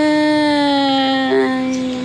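A woman singing a Thái folk song, holding one long note that sinks slowly in pitch, with a brief vocal flourish about halfway through.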